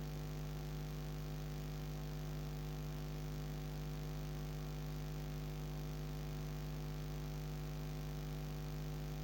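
Steady electrical hum: a constant low drone with a few even overtones over faint hiss, with no other sound.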